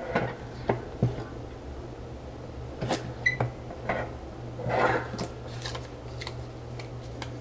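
Hand-operated button-maker press (We R Memory Keepers) being worked: a scatter of short sharp plastic clicks and knocks, with a brief rustle near the middle, over a steady low hum. The clicks are the sound to listen for as the parts seat in the die.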